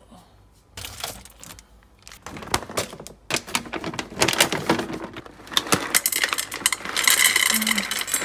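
Dry dog kibble clattering into a stainless steel bowl, with the plastic food bag rustling: a long run of sharp clicks that thickens into a dense, loud pour near the end.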